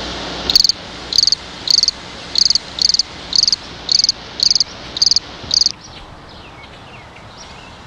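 Cricket chirping: about ten short, evenly spaced high chirps, nearly two a second, that stop about six seconds in.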